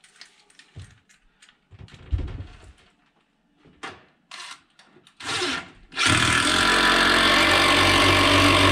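Small clicks and knocks of handling as a bolt is set, then, about six seconds in, a cordless impact driver starts and runs steadily, driving a bolt through the attic ladder frame into the wooden header without fully tightening it.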